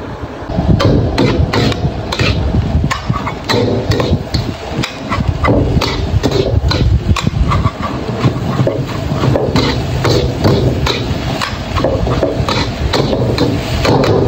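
Metal ladle and spatula scraping and clanging against a steel wok as fried rice is stir-fried, in quick irregular knocks several times a second that start about a second in, over a steady low rumble.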